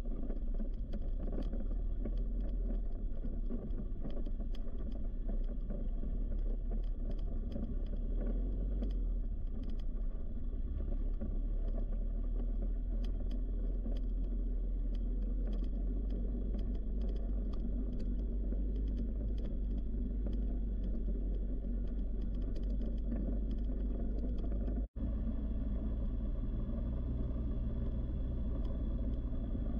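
ATV engine running steadily while riding over a rough dirt track, with a continuous low rumble and scattered knocks and rattles from the bumps. The sound drops out for an instant about 25 seconds in.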